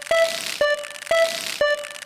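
Japanese level-crossing warning bell going 'kan-kan': a ringing electronic ding repeating about four times a second, alternating between two slightly different pitches.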